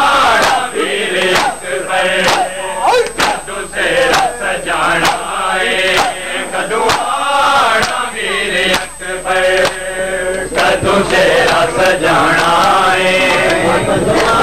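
Men chanting a noha, a Shia mourning lament in Punjabi, over rhythmic matam: hands slapping chests in a steady beat of about two strokes a second.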